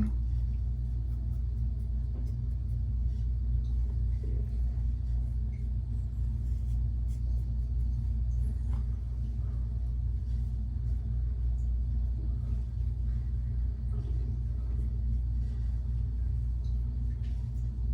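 A steady low room hum runs throughout, with faint, scattered short scratches of a razor scraping across stubble.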